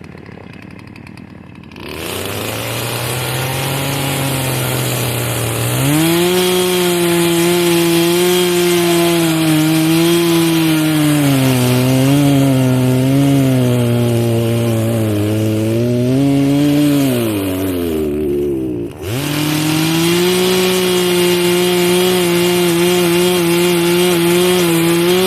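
Two-stroke chainsaw engine catching about two seconds in and running, its speed rising sharply around six seconds and wavering up and down. Near the eighteen-second mark it sags and almost dies, then picks back up and holds at high revs.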